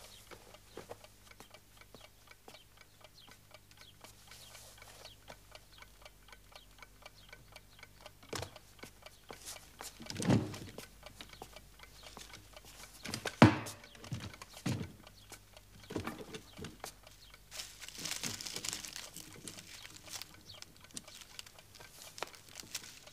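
A clock ticking steadily in a quiet room. Over it come a few sharp knocks, the loudest about halfway through, and a stretch of rustling later on as cloth and a wicker basket are handled.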